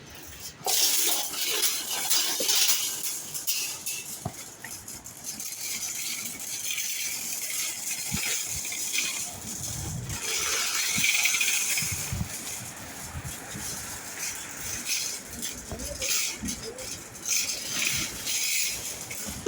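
Rain falling: a steady hiss with many small drop taps and knocks.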